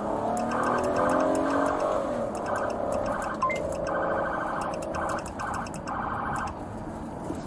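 Police siren sounding through a radio: a falling wail at first, then chopped, pulsing tones as the cruisers try to stop the car. A short radio beep sounds about three and a half seconds in.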